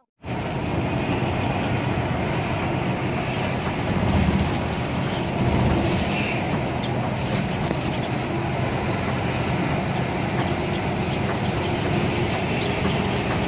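Cabin noise inside a moving coach bus at highway speed: a steady rumble of engine and road noise, swelling a little about four and six seconds in.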